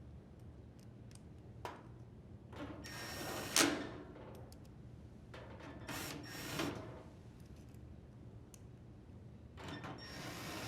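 Drill driver with a Phillips bit driving screws into a dryer's bracket: three separate runs of about a second each, each building up and then stopping, with a small click just before the first.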